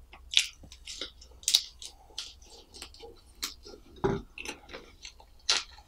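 Close-miked chewing of a mouthful of potato samosa: a string of short, wet mouth clicks and smacks, with a duller knock about four seconds in.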